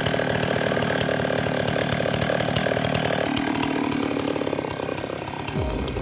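A machine engine running with a fast pulsing note; the sound changes about three seconds in, and near the end its pitch sinks steeply into a low rumble.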